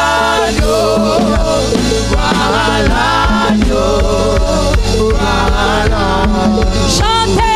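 Live gospel worship singing: several singers on microphones sing together over band accompaniment with a steady bass and drum beat.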